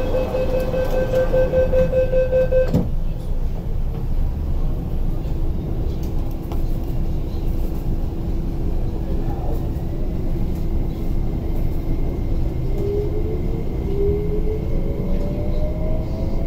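Interior of an MTR East Rail Line IKK (SP1900) electric train: a steady warning tone for about three seconds ends with a thud as the doors close. The train then pulls away with a low rumble, and its traction motors whine, several tones climbing in pitch as it accelerates.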